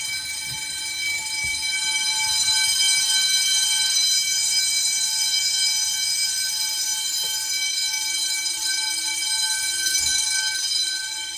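Fire alarm bells ringing continuously, steady and without a pause, as the alarm system is set off for a test.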